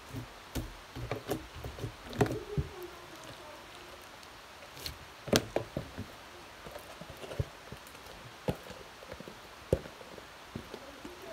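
Glitter slime being handled and pulled out of a clear plastic bowl: scattered sharp clicks and knocks of slime and plastic, the loudest about two seconds in and again about five seconds in.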